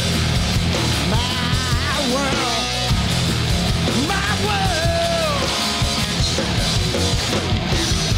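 Live rock band playing loud, with bass, drums and electric guitar. A high melodic line bends and wavers up and down twice over the band.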